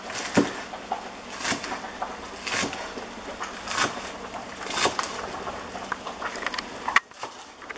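Chef's knife chopping scallions on a plastic cutting board: slow, even cuts about once a second, each a short knock of the blade through the stalks onto the board, with one sharper click near the end.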